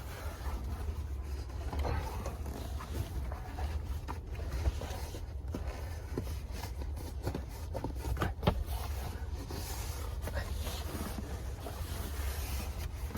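Scattered rustles, scrapes and clicks as a leather seat-back kick protector is handled and its straps and clips are fitted, over a steady low rumble.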